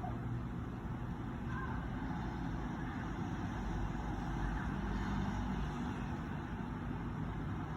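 Steady low rumbling background noise, with a few faint, brief higher tones now and then.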